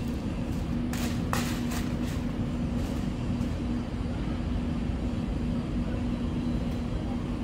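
A steady low mechanical hum and rumble, with a few light knocks about one to three seconds in.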